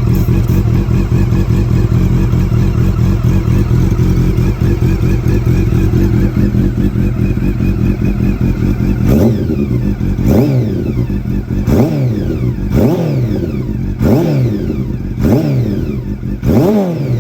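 Honda CB400 Super Bol d'Or (NC39) inline-four running steadily at idle through an aftermarket slip-on silencer. About halfway through it is blipped about seven times, each rev rising sharply and dropping straight back to idle.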